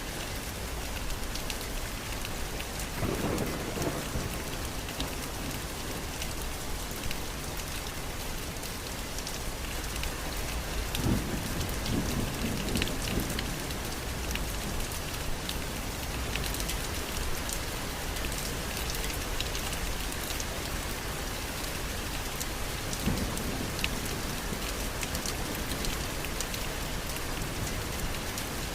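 Steady rain falling, with scattered sharp drop ticks close by. Low rumbles of thunder swell a few seconds in, again for a couple of seconds around the middle, and once more, weaker, later on.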